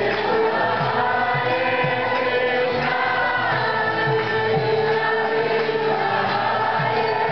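Devotional group singing (kirtan): many voices chanting together over long held drone notes, with a regular drum beat.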